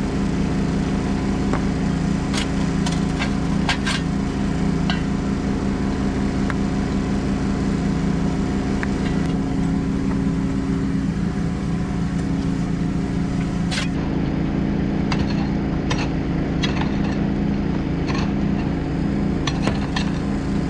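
Jackhammer running continuously, a rapid hammering over a steady motor drone, breaking through solid rock at the bottom of a post hole, with scattered sharp clicks of chipped rock. It cuts off abruptly at the end.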